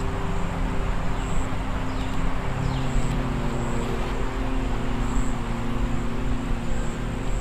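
A steady low drone of several held tones, with a couple of short high bird chirps that slide downward a little over two and three seconds in.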